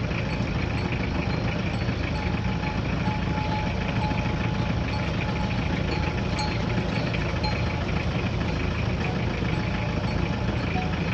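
A steady, low engine hum that stays even throughout.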